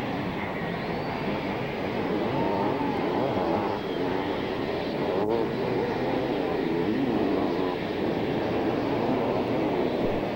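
Two-stroke 500cc motocross bikes racing on the track, their engines revving up and down in rising and falling whines.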